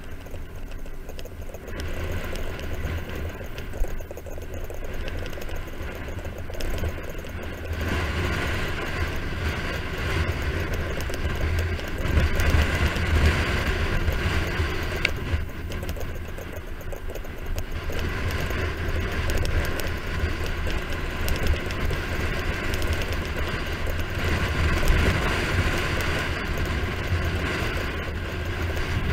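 Wind buffeting a bike-mounted camera's microphone on a fast road-bike descent, with road noise from the tyres on asphalt. The rushing swells and eases as the speed changes.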